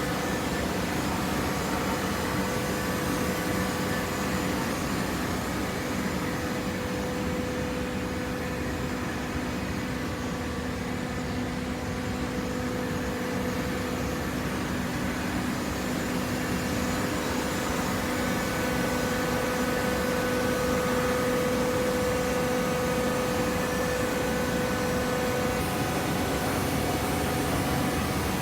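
Hydraulic baler's pump and motor running, a steady mechanical hum and whine over machine noise; the whine fades about halfway through and comes back stronger a few seconds later.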